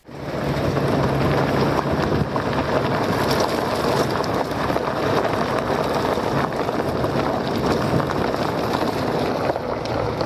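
A van driving along an unpaved dirt road, heard from beside it: a steady rush of wind and road noise over a low, even engine hum.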